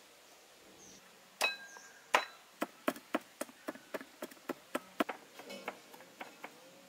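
Broad-bladed kitchen knife chopping garlic cloves on a round wooden chopping block: two sharp knocks with a brief metallic ring, then a quick, steady run of chops, about four a second.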